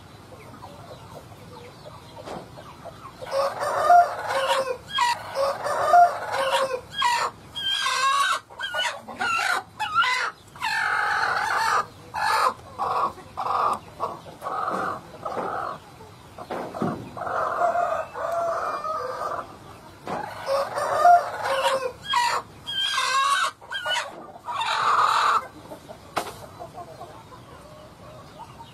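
Desi hen clucking and squawking in a long, busy run of calls that starts about three seconds in and dies away a couple of seconds before the end.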